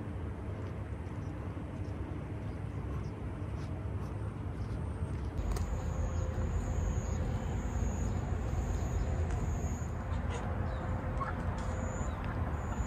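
Outdoor ambience of a walk through grassy grounds: a steady low rumble throughout, with a high, thin, on-and-off trill joining about halfway in and a few faint clicks.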